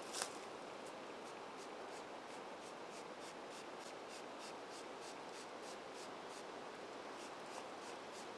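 Scrape Master deer-lure spray bottle squirted over and over into a scrape, faint quick squirts at about three to four a second.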